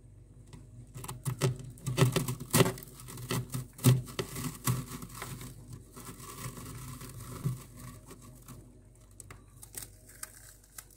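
Thick, powdery freezer frost crunching and crackling under a hand pressing and scraping into it: a dense run of sharp crunches for a few seconds, then softer rustling scrapes and a few scattered crunches near the end.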